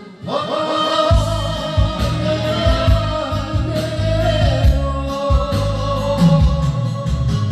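A song with singing: a voice holding long, slowly bending notes over a steady bass beat, starting after a brief break.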